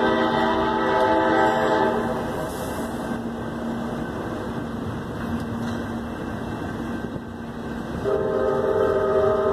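Train horn sounding a long, steady multi-tone blast that stops about two seconds in and starts again near the end, over the rolling noise of a passing double-stack container freight train.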